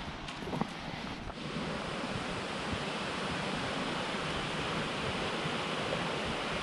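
A few footsteps on a leaf-strewn dirt trail in the first second or so, then the steady, even rush of flowing creek water.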